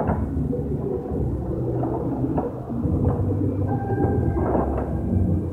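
Busy indoor shop background: a steady low rumble with indistinct voices scattered through it.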